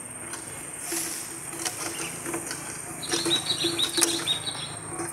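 Steady high insect buzz, with a few light knocks and splashes as a bamboo fish trap holding one fish is handled in the water, and a quick run of chirps about three seconds in.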